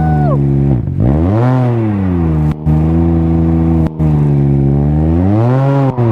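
Can-Am Ryker Rally's three-cylinder engine running loud through an aftermarket Treal Performance exhaust as it is ridden hard. Its pitch falls sharply just under a second in, climbs back, holds steady, then climbs and falls again near the end.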